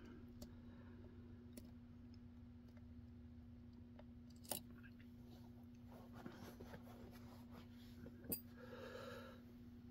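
Faint clicks and light scraping of a lock pick working the pins of a pin-in-pin padlock, with two sharper ticks about halfway and near the end, over a steady low hum.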